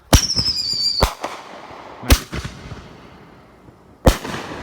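Consumer reloadable mortar shell fired from its tube: a sharp bang with a whistle falling slightly in pitch for about a second, then a bang. Two more loud bursts follow, about 2 and 4 seconds in, the last trailing off in a crackling echo.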